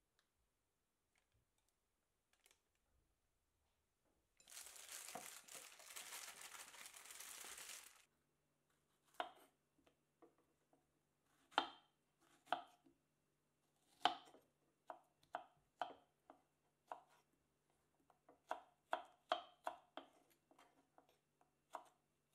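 Knife slicing fresh strawberries on a wooden cutting board: irregular sharp taps of the blade meeting the board, a couple a second, from about nine seconds in. It is preceded by a few seconds of steady rustling noise.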